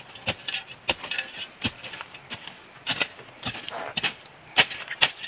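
A digging tool chopping repeatedly into soil and tree roots: a run of sharp, irregular strikes, about one or two a second.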